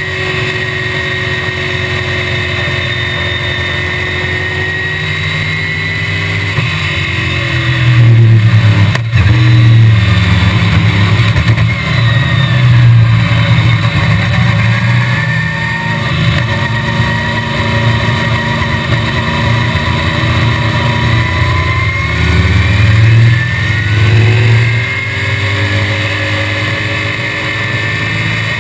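A 1965 BTM Cheetah roadster's Chevrolet small-block V8 running hard at racing speed, heard from inside the open cockpit. Its pitch falls and rises several times as the car goes through the corners, with a brief drop about nine seconds in, over a steady wind hiss.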